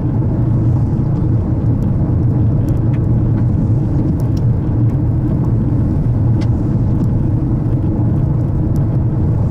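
Steady low rumble of a car's cabin while driving along a rural road, tyres and engine, with a few faint light ticks scattered through it.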